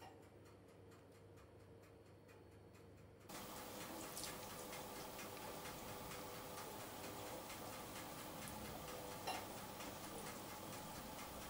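Quick, light ticking and crackling as a silicone pastry brush dabs melted butter onto crisp layers of phyllo baklava in a baking pan, louder from about three seconds in.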